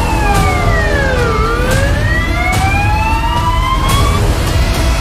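Emergency vehicle siren wailing: one slow falling sweep that bottoms out about a second and a half in, then climbs again and breaks off about four seconds in. A heavy low rumble runs underneath.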